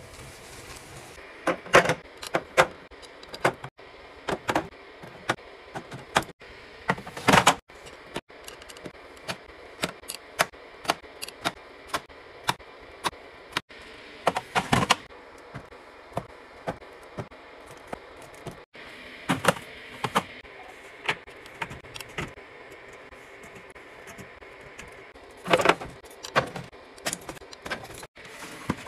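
Fridge restocking handling sounds: irregular clicks, taps and clatter of containers and food items being picked up and set down, over a steady background hiss, with several abrupt cuts between clips.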